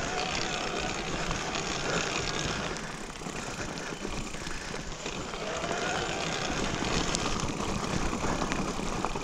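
Mountain bike rolling along a wet dirt trail: steady tyre and rattle noise with wind on the microphone, and a faint squeal twice.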